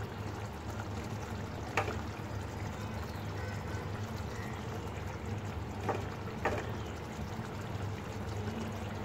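Fish curry simmering in a metal pot, a steady bubbling hiss over a low hum, with a few light clicks about two seconds in and again around six seconds in as tomato slices are put into the pot.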